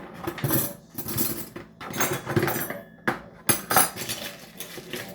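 Metal cutlery clattering and clinking in several irregular bursts as kitchen utensils are rummaged through, with a few sharp clinks a little past the middle.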